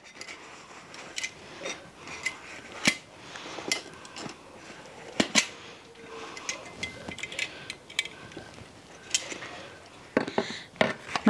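Metal tongs clicking and scraping against a large stockpot as corn husks and steamed tamales are lifted out, in irregular sharp clicks over a steady hiss from the boiling pot.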